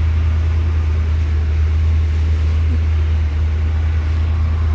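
An engine idling steadily shortly after a cold start, a constant low drone with no change in speed.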